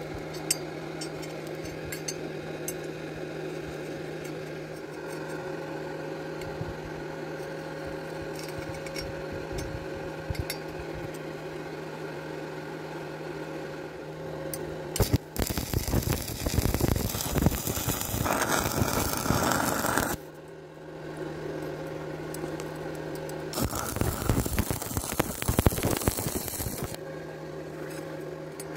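A steady electrical hum, then a stick-welding arc crackling and sizzling on thin steel pipe for about five seconds, a short break, and a second run of about three seconds. The thin tube wall is burned through, leaving a hole at the joint.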